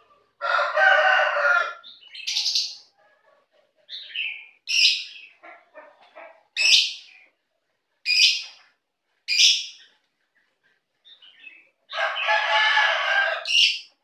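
Caged lovebirds giving short, sharp, high chirps, several seconds apart. Twice, once near the start and once near the end, there is a longer, lower call lasting about a second and a half.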